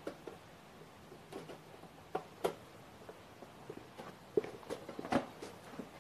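Handling noises: a few scattered sharp clicks and knocks, the loudest about two and a half and five seconds in, from unpacking a new cordless lawnmower's parts.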